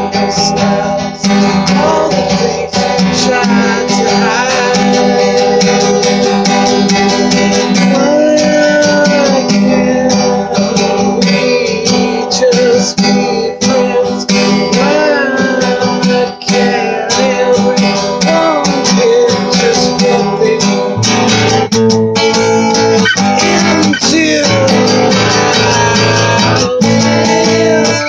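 Acoustic guitar being strummed, with a man singing along.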